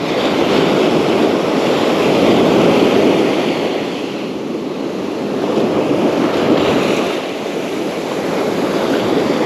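Surf breaking and washing up the beach in slow swells, mixed with wind buffeting the microphone.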